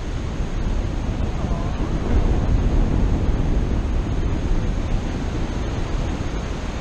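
Steady wind rushing and buffeting over the camera's microphone from the airflow of a paraglider in flight.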